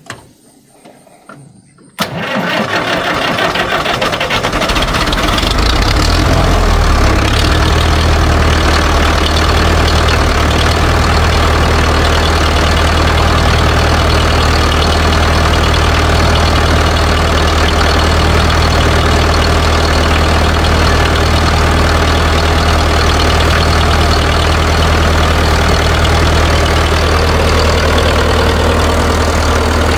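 International B275 four-cylinder diesel tractor engine being started after glow-plug preheating: the starter cranks about two seconds in, the engine catches and builds up over the next few seconds, then settles into a steady idle.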